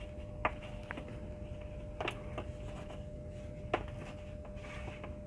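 Light clicks and taps of multimeter test leads and sensor wires being handled on a tabletop, five or six scattered clicks, over a faint steady hum.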